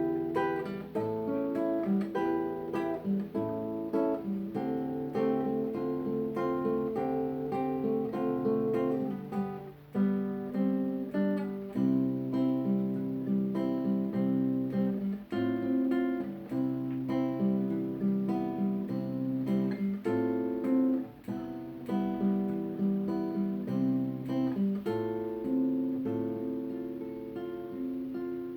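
Acoustic guitar playing chords and picked notes in a steady rhythm, the sound dying away near the end as the piece closes.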